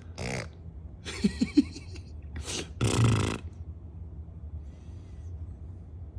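Playful mouth noises between a baby and her dad: several short, breathy, raspy bursts with three quick popping grunts in between, the loudest burst about three seconds in.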